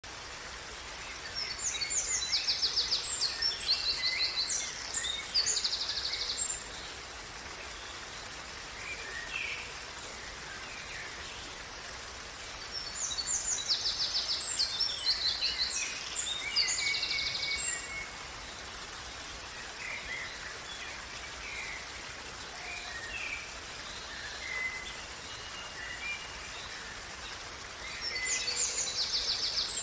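Steady running water of a small stream. A songbird sings a long phrase of high, rapid trills three times: about two seconds in, again around thirteen seconds, and near the end.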